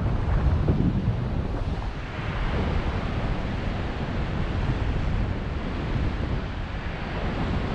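Airflow rushing and buffeting over the camera microphone during paraglider flight, a steady rush with low rumbling gusts.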